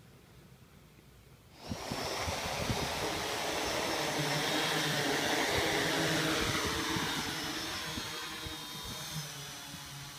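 A quadcopter's four electric motors and propellers spinning up suddenly about two seconds in and lifting it off, a loud steady whir with a high motor whine. The sound grows quieter over the last few seconds as the drone climbs away.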